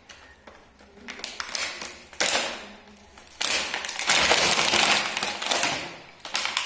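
Thin plastic packaging crinkling and crackling as a bag of plastic toy tools is pulled off a toy tool set's backing card. It comes in short spells with light clicks, and the loudest spell lasts about two and a half seconds in the middle.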